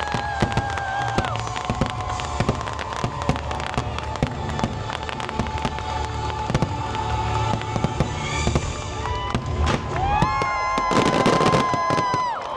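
Fireworks show finale: rapid bangs and crackles of fireworks bursting over the show's orchestral soundtrack, which swells into a long held note about ten seconds in.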